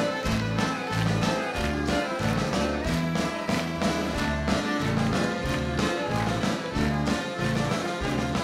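Live band music with a steady, upbeat rhythm and a prominent bass line.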